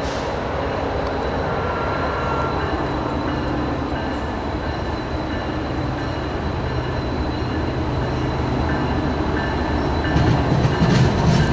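Diesel freight locomotives approaching, their engines droning steadily and growing louder in the last second or so as the lead unit draws close.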